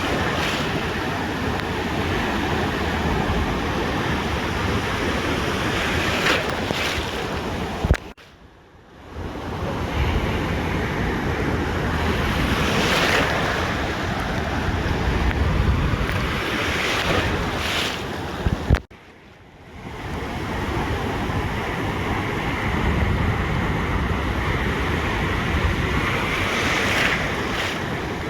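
Ocean surf washing onto a beach, a steady rushing noise that swells every few seconds, with wind buffeting the microphone. The sound cuts out abruptly with a click twice, about 8 and 19 seconds in, then fades back in.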